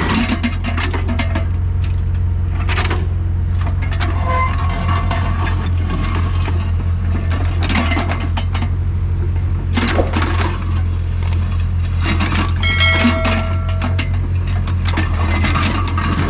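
Doosan DX55WA excavator's diesel engine running steadily, with metallic clinks and knocks from the bucket and arm. There is a short ringing metal scrape about three-quarters of the way through.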